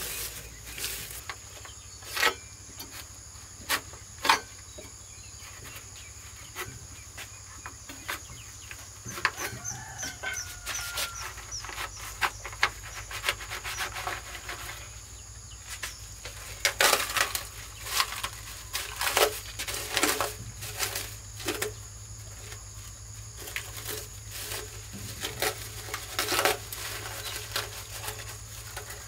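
Plastic sheeting rustling and crinkling as it is pulled out of freshly cast concrete planters, with scattered knocks and scrapes as the plastic pot used as the inner mould is worked loose and lifted out.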